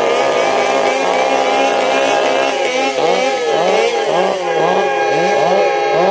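Chainsaw revved hard, held at high revs at first, then from about halfway blipped up and down about twice a second.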